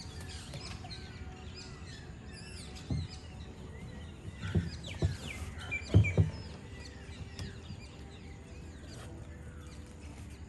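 Many small birds chirping and calling. A few low knocks come in the middle, the loudest about six seconds in.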